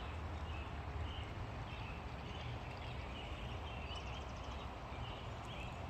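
Small birds chirping repeatedly over a steady outdoor rush, with a quick run of clicks about four seconds in.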